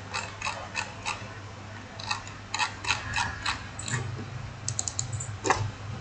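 Clicking of a computer mouse and keyboard: irregular sharp clicks, some in quick runs, over a low steady hum.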